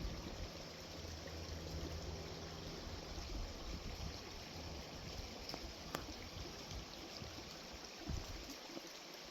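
Creek water flowing, a steady even rush, with a low rumble in the first few seconds.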